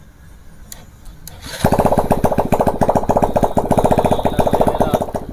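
Freshly rebuilt Bajaj Discover 150 single-cylinder four-stroke engine, wired straight to a battery on a stand, starting after a couple of light clicks and running with a fast, even beat of about ten pulses a second.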